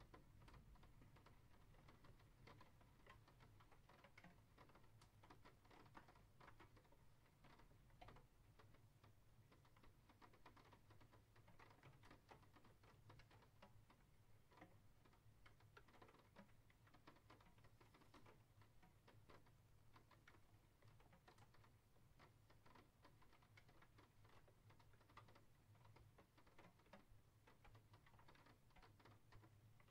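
Faint rain: many irregular drops tapping and pattering, over a low steady hum.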